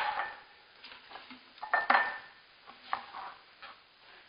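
A spoon scooping yogurt from a tub and knocking against the tub and cup: a few sharp clinks and scrapes, the loudest right at the start and another about two seconds in.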